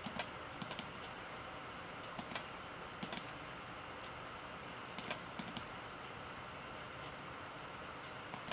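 Scattered clicks of a computer mouse and keyboard, often two in quick succession, at irregular intervals over a steady low hiss.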